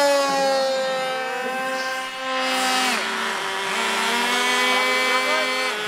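Small high-revving two-stroke model aircraft engines on Cambria Funfighter RC planes, several running at once. The main engine note sags in pitch over the first second, then drops steeply about three seconds in before other engine notes take over.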